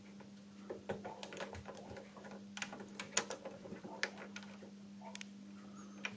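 Front-panel push-button switches of a Soviet 'Pribor Radiolyubitelya-2' frequency counter and generator being pressed to change modes: a string of light, irregular clicks, a few sharper than the rest, over a low steady hum.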